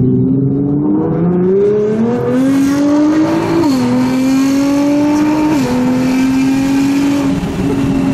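Nissan GT-R's twin-turbo V6, fitted with a full titanium Armytrix exhaust, accelerating hard, heard from inside the cabin. The engine note climbs steadily, and twice it drops sharply at an upshift, about three and a half and five and a half seconds in.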